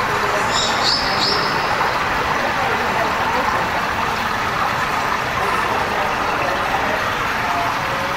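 Steady, dense background rumble and hiss like road traffic or a busy bus terminal, with faint indistinct voices in it. A brief high-pitched squeal comes about half a second in.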